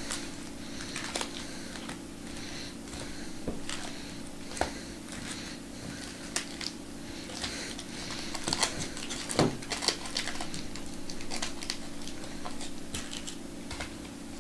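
Foil-wrapped Topps Chrome trading card packs crinkling and clicking as they are picked up, shuffled and stacked on a table, in irregular quick rustles and taps. A steady low hum runs underneath.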